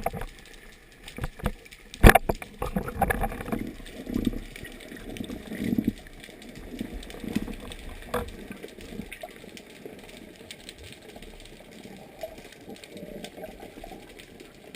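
Water sloshing and bubbling around a camera in the water, with a sharp knock about two seconds in and a few muffled surges after it, then a quieter steady rumble.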